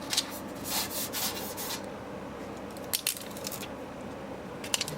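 Scratchy rubbing and rustling sounds as a motherboard is handled, in several short bursts: a longer run about a second in, another around three seconds in, and a brief one near the end.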